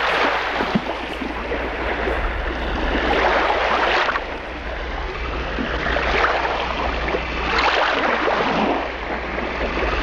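Ocean surf: waves washing in and breaking, the rush of water swelling and fading every few seconds.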